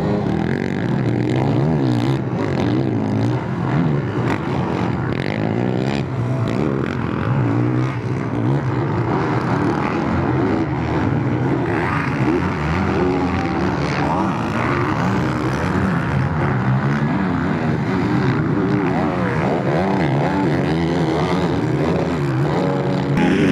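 Several motocross race bikes on a dirt track, their engines revving up and dropping back again and again as the riders accelerate out of corners and over jumps.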